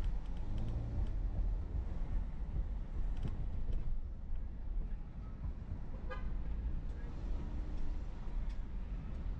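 Car driving, heard from inside the cabin as a steady low road and engine rumble, with a short car-horn toot about six seconds in.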